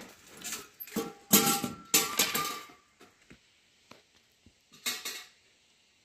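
Metal objects clattering and clinking in three bursts, the loudest from about a second in, with a brief ringing tone within it.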